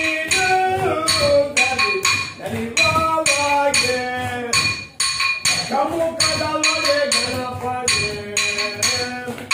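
Yakshagana dance teacher chanting rhythm syllables in a singsong voice while keeping time on small hand cymbals, a steady run of ringing metallic strokes.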